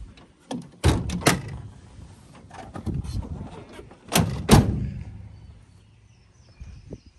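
A 2019 GMC Sierra's MultiPro tailgate being raised and shut: a cluster of metal clicks and knocks about a second in, then two loud latching slams a moment apart about four seconds in.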